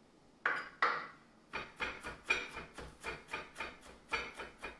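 Chef's knife slicing bell peppers into thin strips on a cutting board. Two knocks come about half a second in, then a steady run of knife strokes on the board at about four a second.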